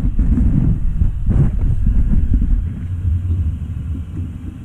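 Model steam locomotive and tender rolling on the track right beside the microphone: a low rumble of wheels and drive, with one click about a second and a half in. The rumble eases off a little past halfway as the train slows almost to a stop.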